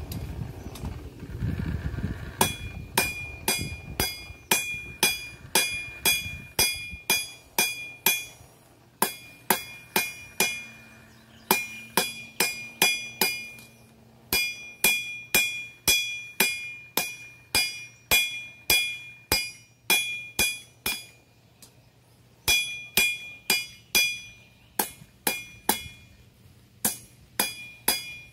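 Blacksmith's hammer striking iron on an anvil, about two blows a second in runs of several with short pauses between, each blow ringing with a clear high tone.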